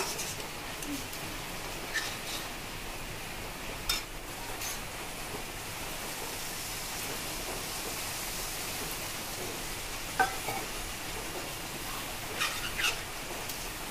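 Duck curry sizzling steadily in an aluminium wok, with a spatula stirring and knocking against the pan a few times. Water is poured in from a steel mug partway through.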